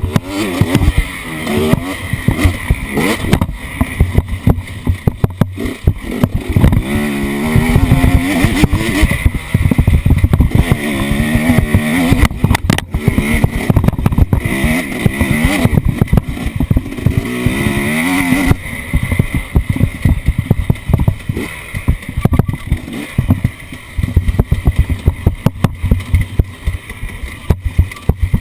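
Off-road vehicle engine revving up and down again and again as it is driven over rough ground, with frequent sharp knocks and rattles.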